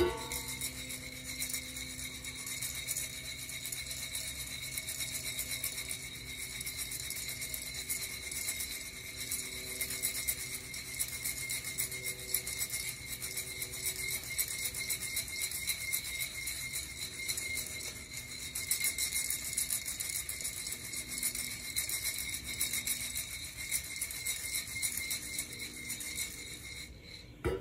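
Coffee beans rattling continuously inside a Nuvo ceramic hand roaster as it is shaken over a gas burner, with a steady high whine underneath.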